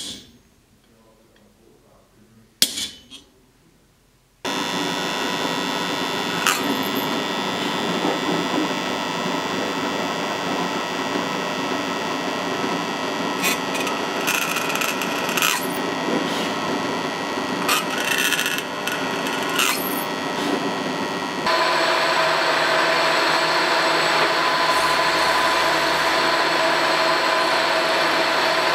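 Two sharp hammer taps on a hand punch marking a brass plate. Then a drill press starts up and runs steadily, drilling the brass, with occasional sharp clicks. About 21 seconds in, the machine tone steps up louder and steadier as a milling-machine cutter works the metal.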